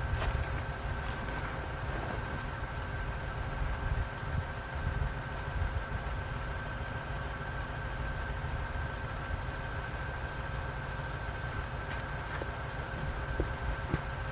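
A vehicle engine idling steadily, with a faint steady whine over the low rumble and a few light clicks.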